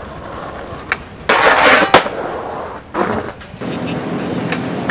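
Skateboard on concrete: a click, then a loud scrape lasting about half a second that ends in a sharp clack about two seconds in, another hit about a second later, then wheels rolling steadily.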